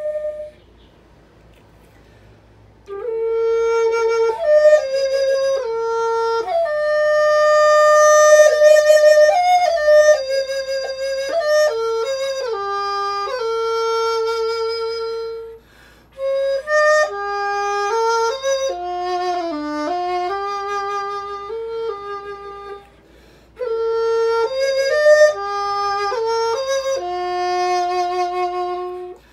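A solo wind instrument, flute-like, playing a slow single-line melody. It starts about three seconds in and runs in three phrases with short breaks between them.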